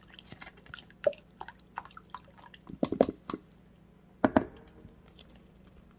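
Italian dressing pouring from an upturned plastic bottle into a zip-top bag of raw chicken thighs: scattered drips and splats, with a few louder gurgles about a second in, around three seconds, and just past four seconds.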